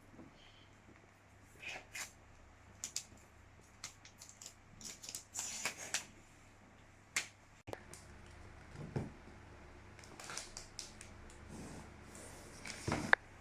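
Hands handling a laptop box and its packaging during unboxing: scattered taps and clicks with short rustles and crinkles of paper or plastic, a longer rustle midway and a louder cluster of handling noises near the end.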